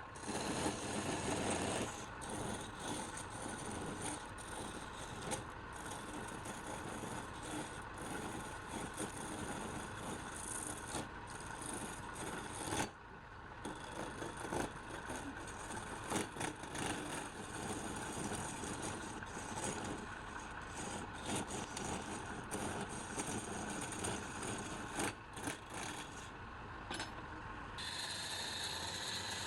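Wood lathe running while a turning tool scrapes and cuts the spinning wood, with short ticks and rattles. The cutting sound drops out briefly about halfway through and again near the end.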